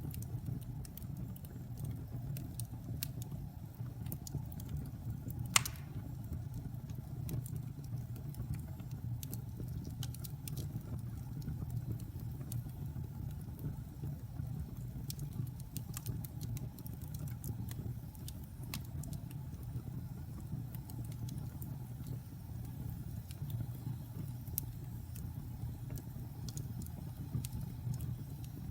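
Fire crackling with scattered sharp pops over a steady low rumble, and one loud pop about five and a half seconds in.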